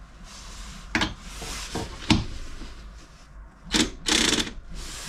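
Cordless drill with a socket extension: two sharp clicks as the socket is pushed onto the drill, then about four seconds in a short, loud burst of the drill running on the van seat's mounting bolt. The drill is failing to undo the bolt.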